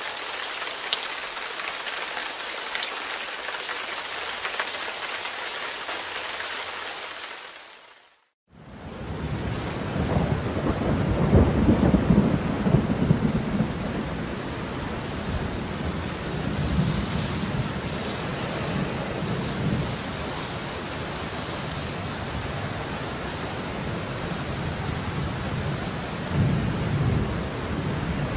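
Rain falling steadily as a bright hiss, fading out about eight seconds in. After a moment of silence, heavier rain starts with rolling thunder rumbles, loudest a few seconds after it begins and swelling again twice later on.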